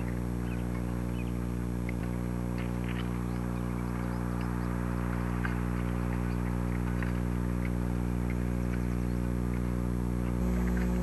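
A steady low hum that does not change, with faint, scattered chirps above it.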